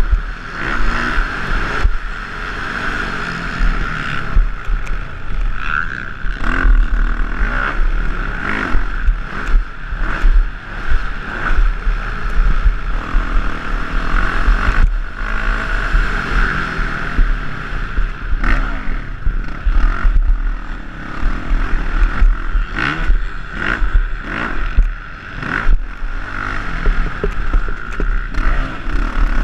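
Motocross bike engine revving up and down as the rider accelerates and shifts around the track, recorded through a helmet camera, with wind buffeting the microphone and frequent sharp knocks from the bike hitting bumps and ruts.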